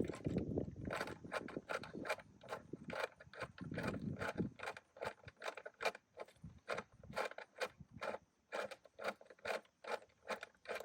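Ratchet wrench clicking steadily, about three clicks a second, as the bolts holding the engine's top cover are undone, with some grinding of the bolts turning in the first second and around four seconds in.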